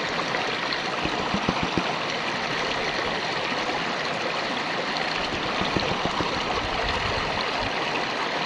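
Shallow river running steadily, with water sloshing and splashing irregularly in a gold pan as it is swirled to clean the concentrate down to the gold.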